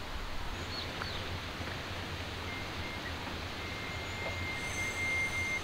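Steady outdoor background noise with a few faint short chirps in the first second or so. A thin, steady high tone comes in about halfway and cuts off suddenly at the end.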